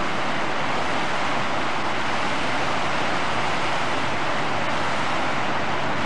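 Fast-flowing river water rushing and churning white around wooden pilings: a steady, even rush with no breaks.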